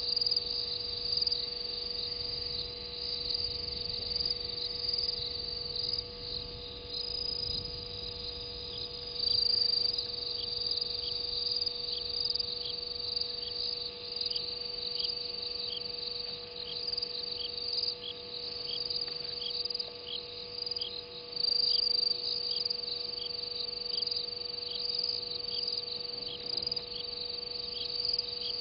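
Night insects calling at a waterhole: a continuous high trill with a second caller's short chirps repeating about three times every two seconds, over a steady low hum.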